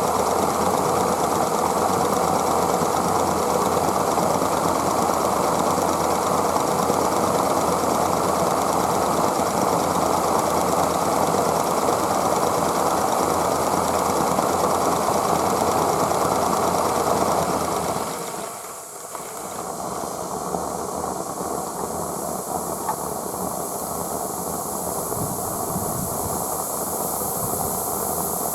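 Aster West Country Gauge 1 live-steam model locomotive running, a steady dense mechanical noise. About two-thirds of the way through it drops suddenly to a quieter level and carries on.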